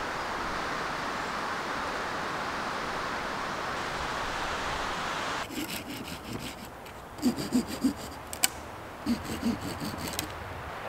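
A steady rushing hiss stops abruptly about halfway through; then come sharp wooden knocks and clacks of cut logs and sticks being handled and knocked together, in a few quick clusters.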